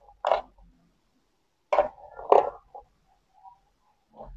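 Handling noise: a few short knocks and rustles, about three in all, as a hand moves the plastic-cased electronic fish-shocker and its wires and clips.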